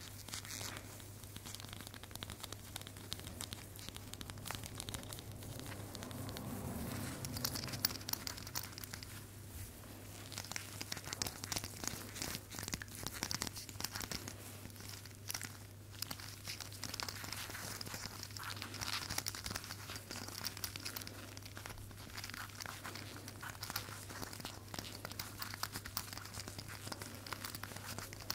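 Crinkling and crackling from something being handled, many small irregular crackles coming thick and fast, over a steady low hum.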